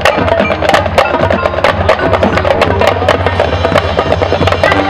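Marching band playing: brass holding pitched chords over a busy pattern of sharp percussion strikes, many a second, from the drum line and front ensemble.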